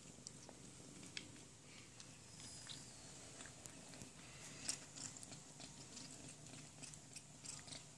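Two kittens crunching dry kibble from a plastic bowl: faint, irregular crunches and clicks of the pellets, one a little louder a little before the five-second mark.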